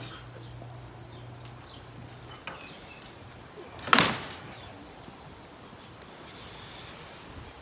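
A door slamming shut once, sharply, about four seconds in. A faint low steady hum stops about two and a half seconds in.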